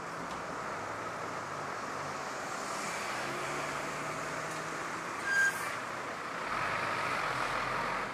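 Steady hum of road traffic with a faint low engine drone. A brief sharp, high-pitched sound about five seconds in, then a vehicle passes and swells louder near the end.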